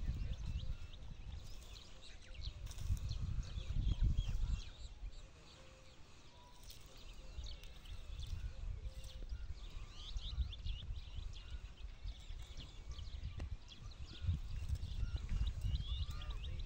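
Dromedary camel browsing on a tree's leafy branches, with many short high bird chirps and a low gusting rumble that swells about four seconds in and again near the end.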